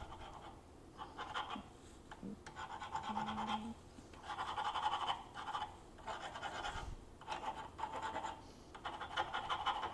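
Small jeweler's file rasping across the threaded metal tip of a fork cartridge rod's piston post and nut, in about six strokes of around a second each. The filing chamfers the threads and removes sharp edges and loose slivers.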